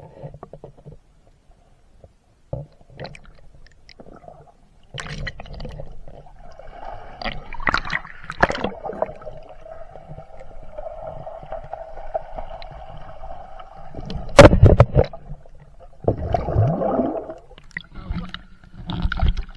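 Muffled underwater gurgling and sloshing picked up by a camera inside a waterproof case, with scattered knocks against the housing and one loud thump about two-thirds of the way through.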